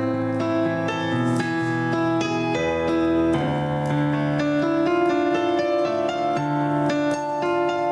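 Piano music: a calm melody of flowing notes.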